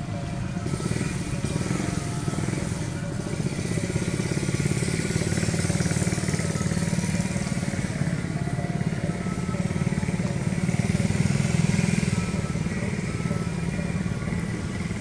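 A motor engine running steadily, swelling louder through the middle and easing near the end, with music playing underneath.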